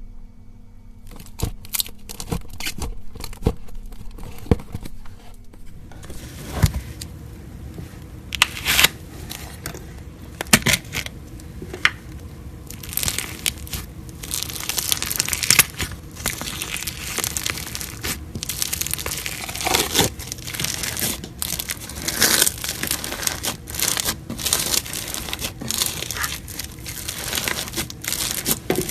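Slime being squished, stretched and poked by hand, with sticky crackling and many sharp clicks and pops.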